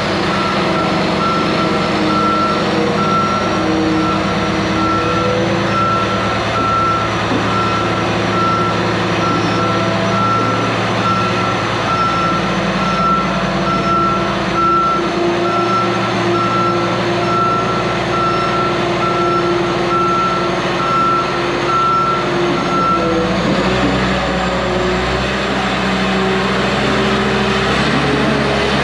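A John Deere 850 crawler dozer's diesel engine running while its backup alarm beeps in an even, steady rhythm as the machine moves in reverse. About three-quarters of the way through, the beeping stops and the engine note changes.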